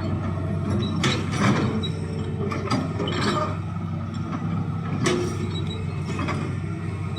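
Hitachi hydraulic excavator's diesel engine running steadily under load, with repeated metallic clanks and scraping as it digs a trench, loudest about a second in and again about five seconds in.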